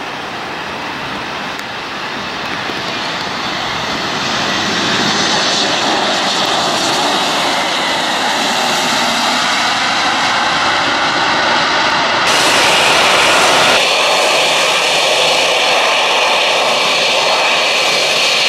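Boeing 787-9 jet engines as the airliner lands and rolls out, a rushing engine noise that grows louder over the first few seconds. About two-thirds of the way through the sound changes abruptly to the steadier whine of the engines at low power as the jet taxis close by.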